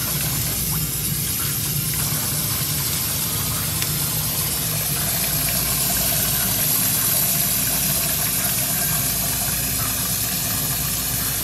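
Steady hiss of running water with a knife blade scraping along the wet, slimy skin of a kue (longtooth grouper), clearing its slime and fine scales, over a low kitchen hum.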